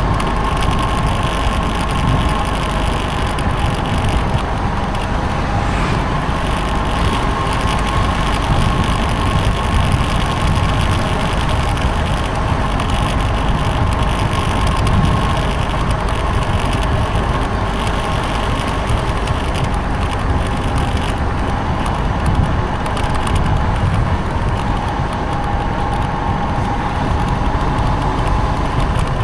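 Motorbike on the move along a road: a steady engine whine over a constant low rumble of wind and road noise.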